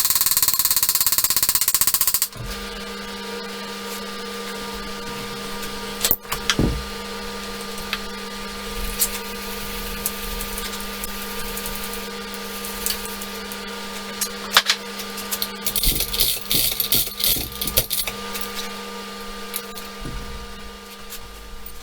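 A power tool rattling rapidly for about two seconds as bolts are worked loose, then a steady hum with scattered clicks and knocks of metal parts and tools being handled.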